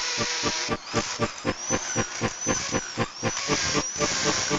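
Electric hand drill boring an anchor hole into a concrete wall, running with an even pulse several times a second.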